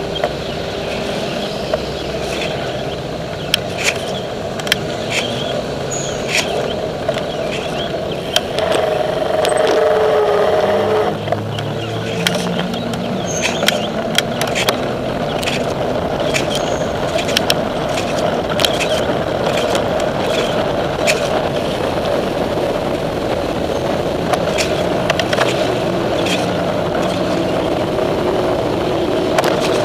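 City road traffic heard from a moving bicycle: a steady rumble of car engines and tyre and wind noise, with frequent short sharp clicks and rattles. About nine seconds in, a louder vehicle passes with a tone that drops in pitch.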